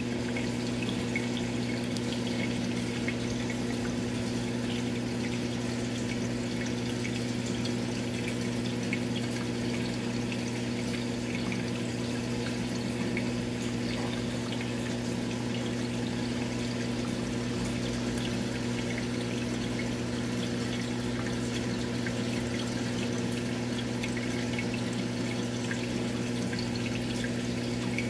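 Aquarium pump humming steadily, with water trickling and bubbling in fine crackles over it.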